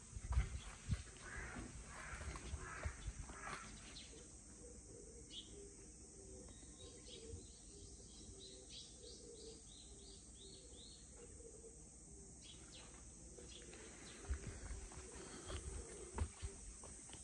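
Outdoor rural ambience with a steady high hiss. A bird gives a quick run of about eight short, high chirps in the middle. Footsteps and rustling come at the start and again near the end.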